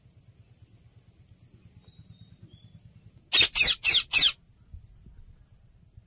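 Pet parrot giving four quick, shrill calls in about a second, past the middle, after a few seconds of faint low hum.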